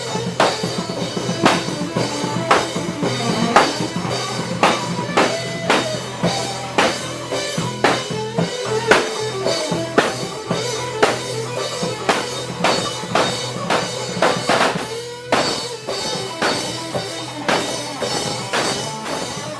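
Band music played live, with a drum kit keeping a steady beat of about two strokes a second under a wavering melody line.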